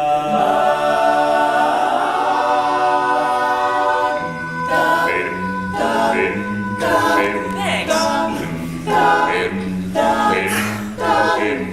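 All-male a cappella group singing without instruments. They hold a full chord for about four seconds, then break into a rhythmic backing of short sung syllables over a moving bass line.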